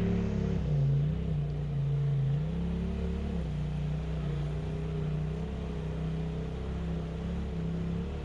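Polaris RZR Pro XP side-by-side's twin-cylinder engine running at low revs, its pitch stepping up and down a little as it creeps over rough ground.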